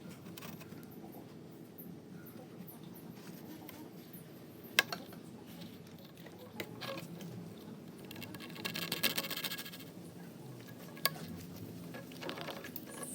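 Faint handling sounds of hands-on work: a sharp click about five seconds in, a short scraping rattle around nine seconds, and another click near eleven seconds.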